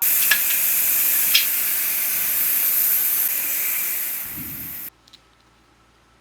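A pressurised jet hissing loudly and steadily for about five seconds, with two short clicks near the start, easing slightly before cutting off suddenly.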